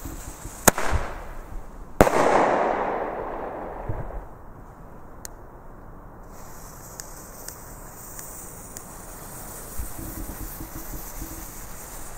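Two flashbang firecrackers, a Weco and then a Nico, going off about a second and a half apart with two sharp bangs. The second bang is followed by a long echo that dies away over about two seconds.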